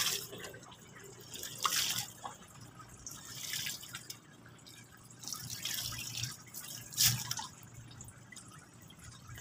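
Water splashing and dripping in irregular bursts as river prawns are scooped with a plastic bowl out of a cooler box into a mesh basket, several louder splashy scoops a second or two apart.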